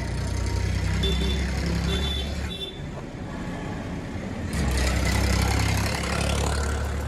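Road traffic going by: the low rumble of passing vehicle engines, easing off after about two and a half seconds and swelling again as another vehicle passes about four and a half seconds in. A few short high beeps sound between about one and two and a half seconds in.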